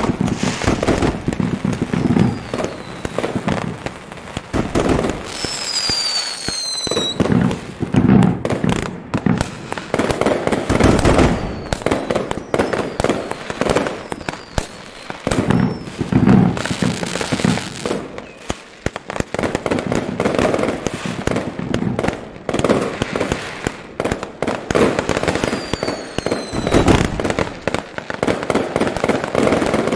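A fireworks display: a dense, continuous barrage of booming shell bursts and crackling. Falling whistles cut through several times, the clearest about six seconds in and again late on.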